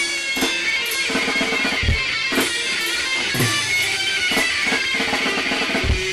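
Background music: electric guitar over a drum beat with regular hits about once a second.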